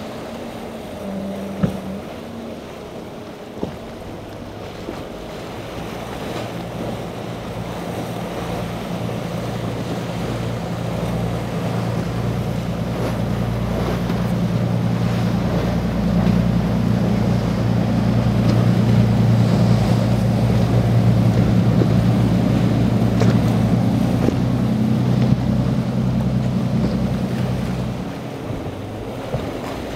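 Twin Yamaha 300 outboard engines on a Contender center-console boat running through choppy inlet water, with a steady engine note that builds as the boat comes closer and passes, then drops away sharply near the end. Splashing waves and wind on the microphone run underneath.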